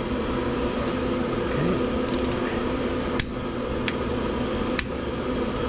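Propane jet heater running with a steady hum, with a few sharp clicks of hand tools on metal about three, four and five seconds in.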